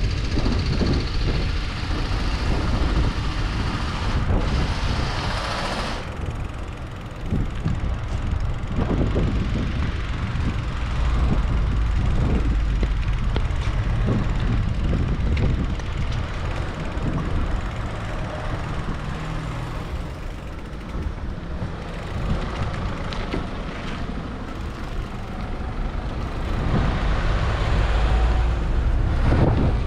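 Street traffic heard from a moving bicycle, over a steady low wind rumble on the camera's microphone. A louder passing vehicle fills the first few seconds and cuts off about six seconds in, and another swells up near the end.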